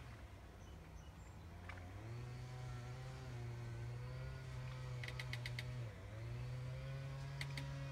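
An engine running steadily off-screen, its pitch dipping and coming back up twice. A quick run of high ticks comes about five seconds in and again near the end.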